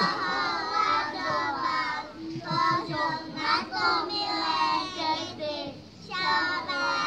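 A group of young children singing a song together, with a short pause between lines about six seconds in.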